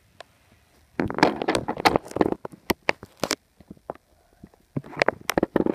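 Bedding rustling and rubbing against the microphone as the phone is moved against a pillow and blanket: crackly bursts, one about a second in lasting about a second and a half, a short one near the middle, and another near the end.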